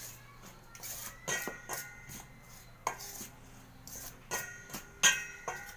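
Two metal utensils stirring dry flour-and-spice breading in a stainless steel bowl. They scrape and clink irregularly against the bowl, and the louder knocks leave a short metallic ring; the loudest comes about five seconds in.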